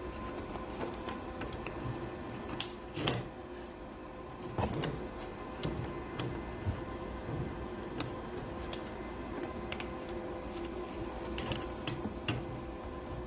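Steady electrical hum with scattered sharp clicks and light knocks.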